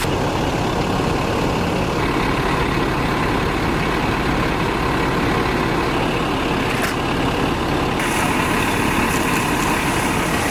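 Fire engine's engine running steadily at idle, a deep, unbroken rumble.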